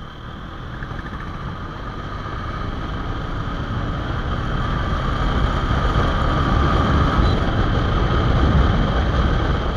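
Honda Hornet 2.0 motorcycle's 184 cc single-cylinder engine running under way, with wind rushing over the microphone. The rumble grows steadily louder as the bike picks up speed.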